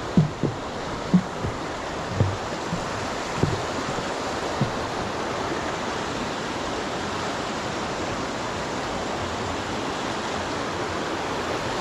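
Steady rushing of a rocky stream's rapids, with several low thumps in the first five seconds.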